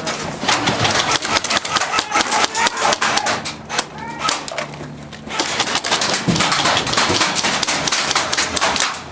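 Airsoft guns firing in rapid, irregular clattering strings, easing off about four seconds in and picking up again about a second later, over a low steady hum.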